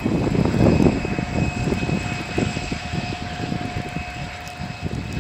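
Passenger train pulling away after passing, its gusty low rumble peaking about a second in and then slowly fading, with air from its wake buffeting the microphone. A faint steady whine runs over it.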